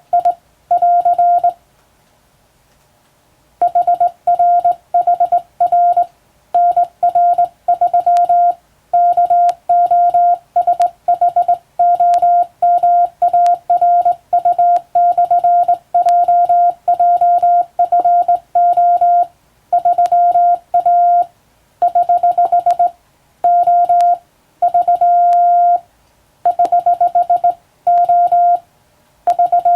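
Morse code telegraphy: a single steady beep keyed on and off in dots and dashes at a brisk sending speed, in groups with short breaks and a pause of about a second and a half a couple of seconds in. It is English-language telegram practice text.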